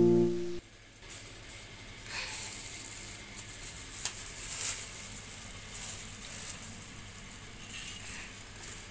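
A harp-like music note cuts off; then a faint, steady high hiss of background noise with a few light scattered clicks.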